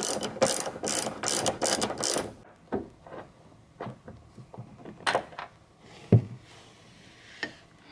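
Socket ratchet wrench clicking rapidly for about two seconds as it spins out a 14 mm seat-belt anchor bolt, then scattered light metallic clicks and a knock as the loose bolt and belt anchor are handled.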